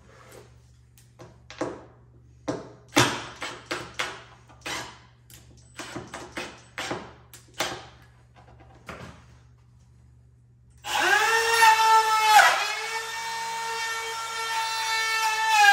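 A string of short sharp sounds, then about eleven seconds in a cordless drill starts and runs steadily with a high motor whine, dipping once shortly after starting and dropping slightly in pitch near the end.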